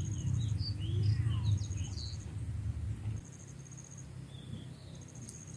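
Birds chirping in quick short notes, over short repeated trains of high insect trilling, with a low rumble that fades about three seconds in.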